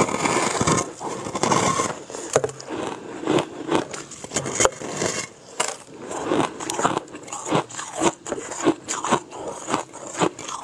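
Teeth biting into a big chunk of white frost ice: a dense crackling crunch for about the first two seconds, then repeated crunching chews about twice a second.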